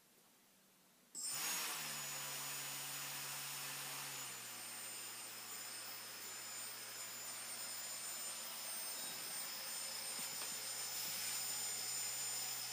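2200KV outrunner brushless motor started from the transmitter's throttle, coming on suddenly about a second in and then running steadily: a whir with a high steady whine over it. Its pitch drops slightly a few seconds after it starts.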